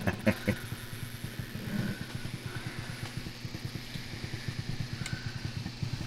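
Vevor essential oil distiller running, making a low, even, rapid pulsing of several beats a second. A few light knocks near the start come from the hose and glass jar being handled.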